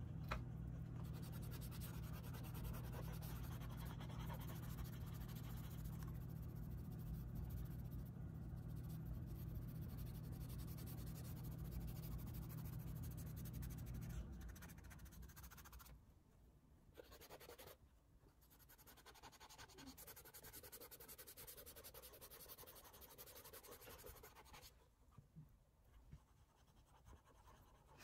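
Faint scratching and rubbing of an oil pastel stick and a cotton swab on sketchbook paper as colour is laid down and blended. A steady low hum runs under the first half and stops about halfway through.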